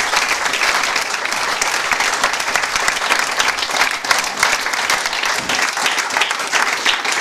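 Audience of parents and pupils applauding in a small classroom, steady clapping throughout.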